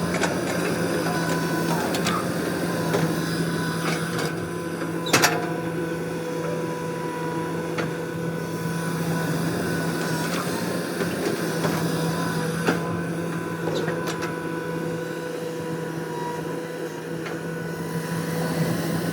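Steady machine hum, in the manner of an engine sound effect for a cartoon excavator or truck, with a few sharp clicks; the loudest click comes about five seconds in.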